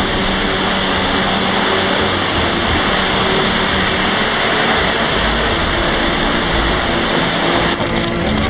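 Steady rushing of a waterfall, with music playing underneath. Near the end the water noise cuts off sharply and the music carries on.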